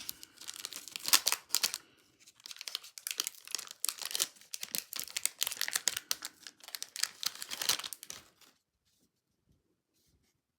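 A trading-card pack wrapper being torn open and crinkled, with dense crackling rips that stop suddenly about eight and a half seconds in.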